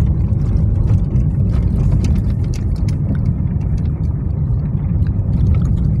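Car driving on a cracked, patched asphalt road: a steady low rumble of engine and tyres, with scattered light knocks and rattles from the rough surface.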